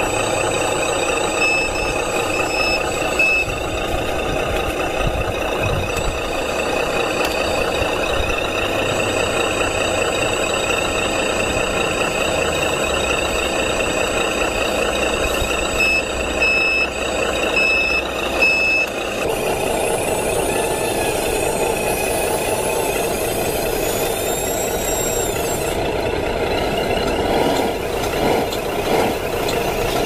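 1/12-scale RC JCB backhoe loader's simulated diesel engine running steadily, with a reversing-alarm beeping four short times near the start and four more about halfway through. For several seconds in the latter half a high, wavering whine rides over the engine sound.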